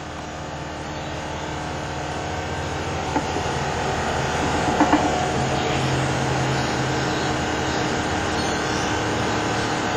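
Steady mechanical rumble and hum that swells gradually over the first few seconds, then holds level, with a couple of faint clicks around the middle.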